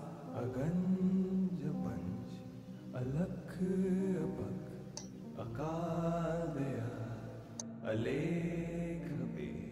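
Background music: a calm chanted vocal sung in slow phrases, each about a second and a half long, over a steady low drone.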